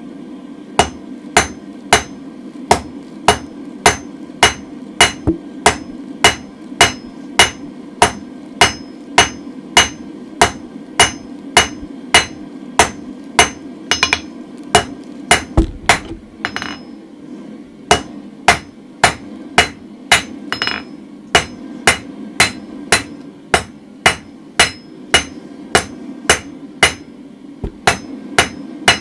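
Hand hammer striking a hot mild-steel bar on an anvil, steady blows at about two a second with short breaks near the middle, while the end of a round drift is forged to a taper. A steady low rumble runs underneath.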